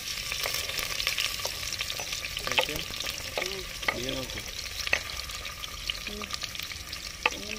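Sliced onions sizzling and frying steadily as they drop into hot coconut oil in a stainless steel pressure cooker, with a few sharp knocks from the spoon and spatula against the board and pot.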